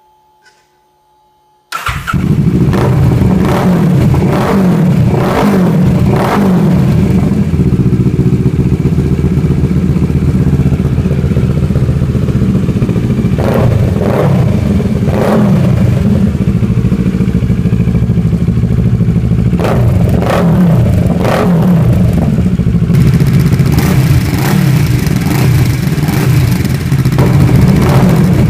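Kawasaki ER-6's parallel-twin engine running through an IXIL full exhaust system, idling loudly with repeated throttle blips. The engine sound comes in abruptly about two seconds in.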